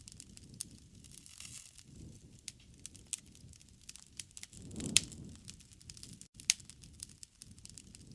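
Wood campfire crackling, with irregular sharp pops and snaps over a soft low rush of the flames. The loudest pop comes about five seconds in.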